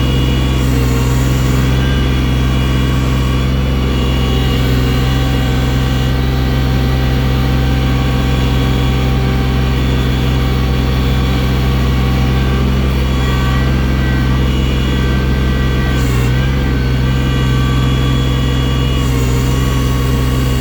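Engine of a snow-clearing machine with a loader bucket, running steadily at an even speed, with a small shift in pitch about two-thirds of the way through.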